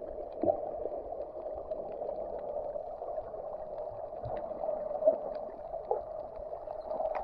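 Muffled underwater sound picked up by a camera in a waterproof housing: a steady, dull rushing with faint scattered clicks and crackles.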